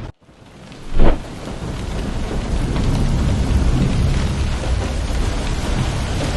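Violent windstorm: after a brief near-silent moment, a single loud bang about a second in, then wind and rain noise building to a steady loud rush with a deep rumble underneath.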